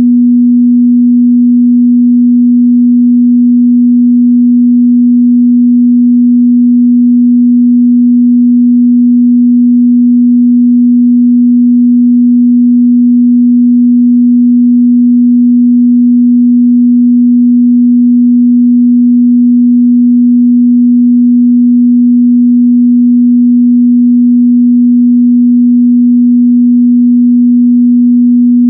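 A steady, loud 243 Hz sine-wave test tone, a single unwavering mid-bass hum.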